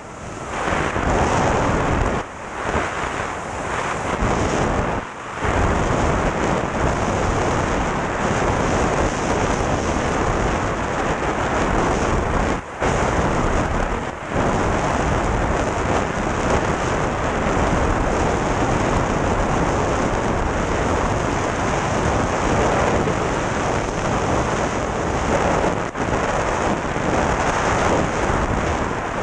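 Freefall wind rushing over the camera microphone during a tandem skydive: a loud, steady rush of noise that briefly drops out a few times.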